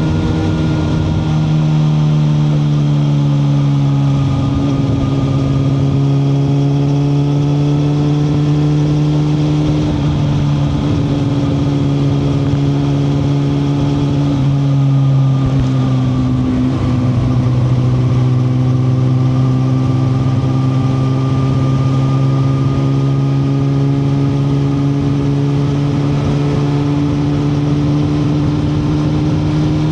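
2021 Suzuki GSX-R1000R inline-four engine running under way, loud and steady. Its pitch rises and falls slowly with the throttle, with a few short drops in pitch about 4, 10 and 15 seconds in.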